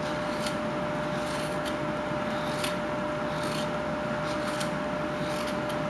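Whittling knife shaving wood in large roughing cuts: a series of short scraping strokes, about one or two a second, over a steady background hum.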